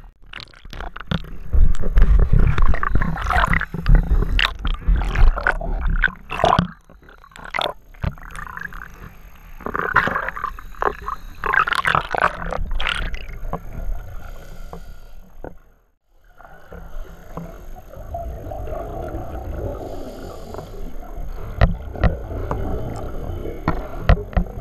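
Underwater sound through a camera housing: water rushing and bubbling around scuba divers, with repeated surges of regulator exhaust bubbles. A heavy low rumble of churning water is loudest during the first few seconds.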